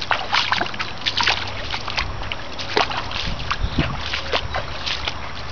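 Water splashing and trickling, with scattered short knocks and rustles and a low rumble from about two seconds in.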